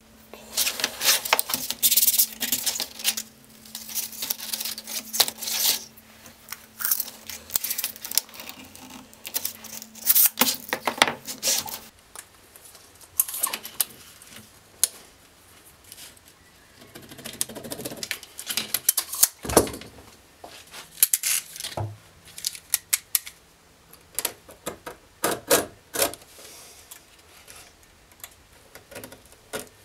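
Sandpaper being handled, slid and cut on a wooden bench: a run of short, scratchy rustles, scrapes and clicks. Near the end a utility knife scores the sandpaper along a steel ruler.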